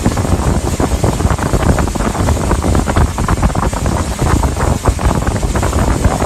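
Wind buffeting the microphone on a moving pontoon boat: a loud, gusty rush of noise that cuts off suddenly at the end.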